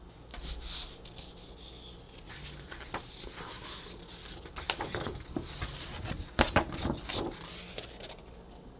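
A folded sheet of paper being handled and unfolded: rustling with sharp crinkles, loudest in a cluster of crackles about halfway through.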